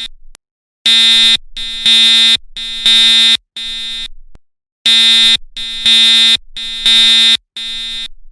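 Fire alarm horn sounding with a harsh, buzzy tone in a repeating pattern of three blasts and a short pause. It stops abruptly at the end.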